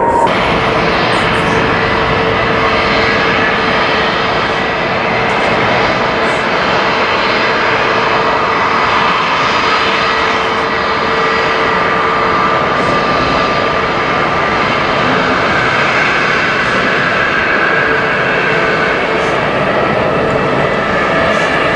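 Airbus A320neo's CFM LEAP-1A turbofan engines running loud and steady, a dense jet roar with steady whining tones over it.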